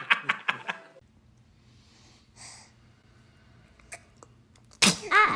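Laughter trails off in the first second. After a faint breath, a baby sneezes once near the end: a sudden loud burst that runs into a short voiced sound.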